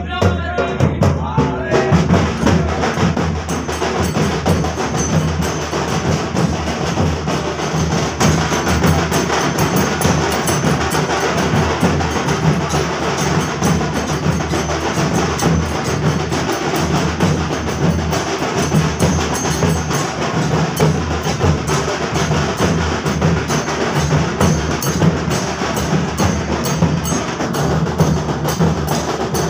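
Loud, continuous drum-led percussion music, with dense rapid strikes and a heavy low beat.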